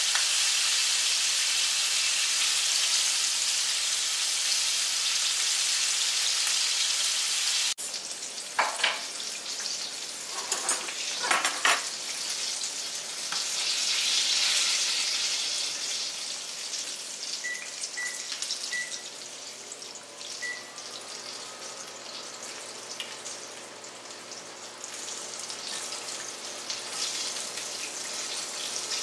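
Chicken frying in hot shortening in a cast iron skillet: a steady sizzle, which drops suddenly in level about eight seconds in. A few sharp clicks of a metal fork against the pan come soon after, and four faint short beeps come near the middle.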